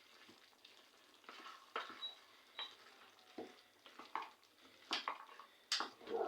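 A spoon stirring a pot of muthokoi, a maize-and-beans stew, with a string of irregular short knocks and scrapes against the pot, starting after about a second.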